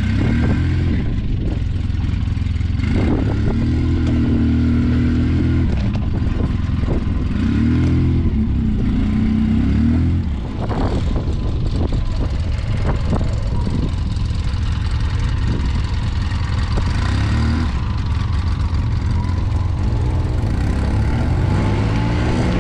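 Can-Am Maverick X3 side-by-side's engine running under load, the revs rising and falling several times, with knocks and rattles throughout.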